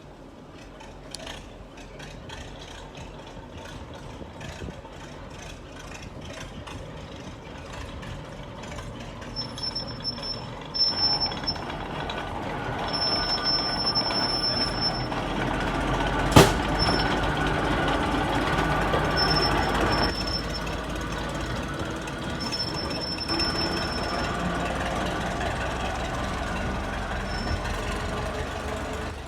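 Narrow-gauge diesel locomotive No 9 Alf running with its train. The engine builds from about ten seconds in and then eases. A high thin squeal from the wheels comes and goes, and there is one sharp clank about halfway through.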